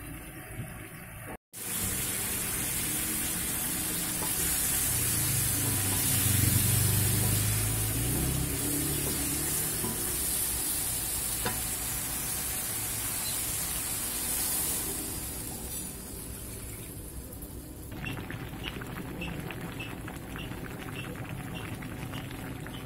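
Tofu and tempe cooking in a wok of turmeric spice broth: a steady sizzling bubble as a wooden spatula stirs and pushes the pieces around. Near the end, small regular pops of bubbles come through more clearly.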